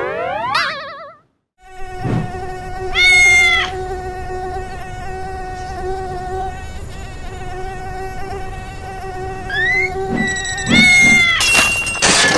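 Small quadcopter drone hovering with a steady, insect-like buzzing whine. It is broken twice, about three seconds in and again about eleven seconds in, by a louder, higher pitched cry. A rising, wavering sweep opens the sound and is followed by a moment of silence.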